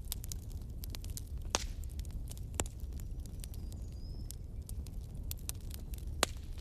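Wood fire crackling in a fireplace: irregular small snaps and pops over a low steady rumble, with a few sharper pops standing out.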